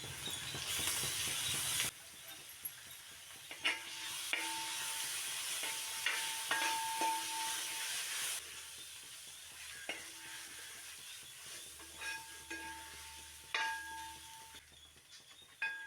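Food sizzling in a pan while a metal spoon stirs it, knocking against the pan several times with short ringing clinks.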